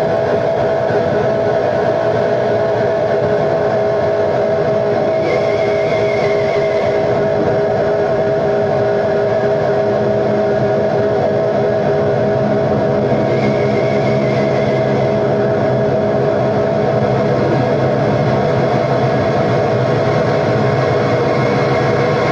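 Live experimental noise music: a loud, dense wall of noise with sustained droning tones. A lower drone comes in about halfway through, and a wavering high tone comes and goes twice.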